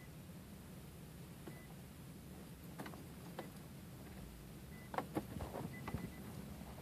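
Several sharp clicks, more of them in the second half, and a few short high beeps over a low steady hum, from inside a 2004 Infiniti G35 that will not start.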